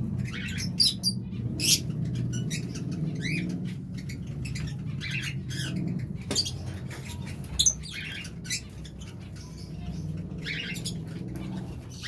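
A flock of lovebirds chirping and squeaking in many short, high calls, over a steady low hum.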